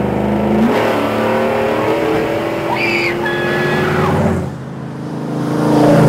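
V8 engine of a swapped 1960 Ford F250 crew cab accelerating, its pitch climbing steadily, dipping briefly about four and a half seconds in, then climbing again.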